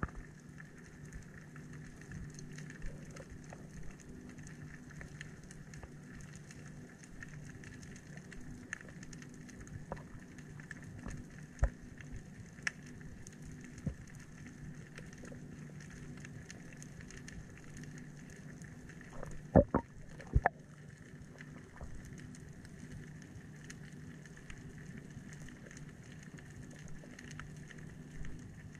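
Underwater ambience heard through a diving camera: a steady low hum with scattered faint crackling clicks, and a few sharper knocks about twenty seconds in.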